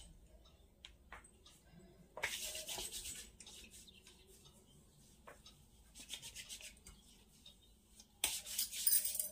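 Short bursts of rubbing and rustling, the loudest near the end, as clothing is handled.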